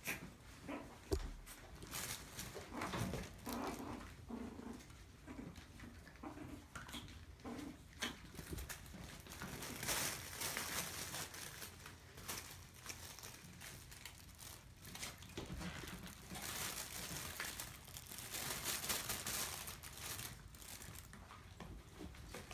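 Maltese puppies playing in a pen: paws scrabbling and the nylon play tunnel and bedding rustling and crinkling in irregular bursts, with a few short puppy vocal sounds in the first several seconds.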